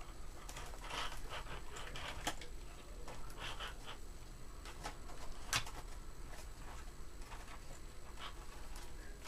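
Plastic toy truck being handled and pulled apart: quiet irregular clicks, scrapes and rustles, with one sharper click about five and a half seconds in.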